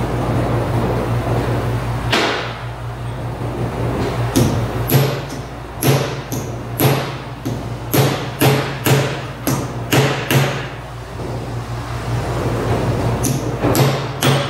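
Hand hammer striking the top of a Mitsubishi V6M5A manual transmission on the bench, sharp metallic blows about two a second: a run of about a dozen, then a pause and three more near the end. A steady low hum runs underneath.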